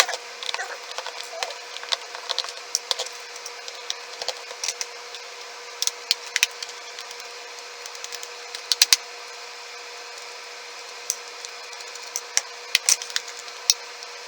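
Irregular small clicks and taps of a screwdriver and small screws as the six screws are taken out of a TI-83 Plus calculator's plastic case, with a few sharper knocks now and then.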